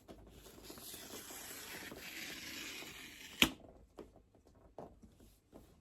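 Cardboard pull-tab tear strip being ripped along the side of a product box: a steady tearing rasp for about three seconds that ends in a sharp snap, followed by a few light taps of handling.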